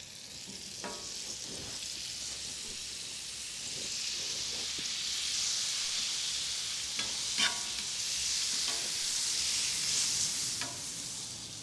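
Butter melting and sizzling on a hot flat-top griddle, worked across the surface with a metal spatula. A steady high hiss builds gradually, with a few light clicks and scrapes of the spatula, the loudest about seven seconds in.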